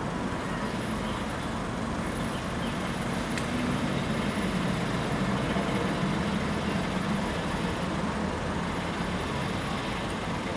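Steady low hum of a motor vehicle's engine running, swelling slightly in the middle.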